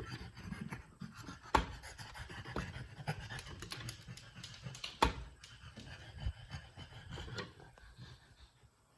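Two sharp clicks, about one and a half seconds in and about five seconds in, from the portable chiropractic adjusting headpiece clicking up and down during an upper-neck adjustment. Under them a French bulldog pants steadily, fading toward the end.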